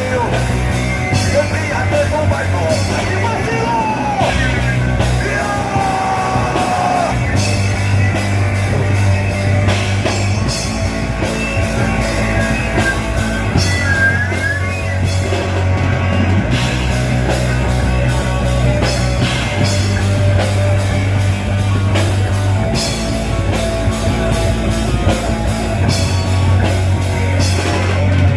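Rock band playing live, with drums, bass and guitar under a singer's voice that turns to shouting at times.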